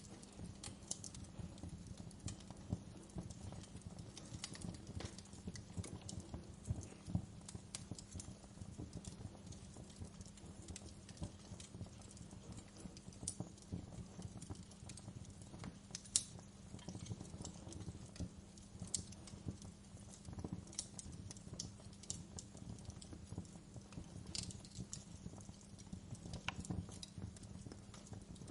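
Wood fire burning in a fireplace, crackling with many irregular sharp pops over a low steady rumble; one louder pop about halfway through.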